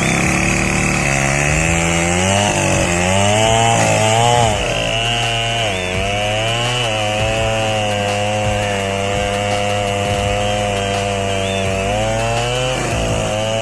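Chainsaw running under load as it cuts wood, its engine pitch dipping and recovering several times as the chain bites and frees.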